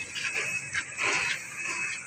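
Footsteps of boots on a rusty expanded-steel grating walkway: a series of short treads, a few steps a second.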